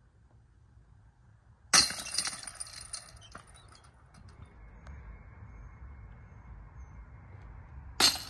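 Disc golf discs hitting the chains of a small disc golf basket twice: a sharp metallic jangle about two seconds in that rattles down over a second or so, and a second strike near the end.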